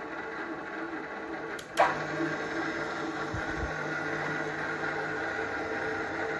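Geared-head pillar drill (IMA IG 30-8) running, its gearbox and motor giving a steady whine of several fixed tones. A sharp clunk comes a little under two seconds in, after which the running note changes and is slightly louder.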